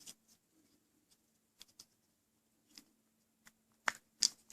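Scattered small clicks and taps of a Volkswagen key fob's plastic case and key ring being handled while it is put back together, a few louder clicks close together near the end.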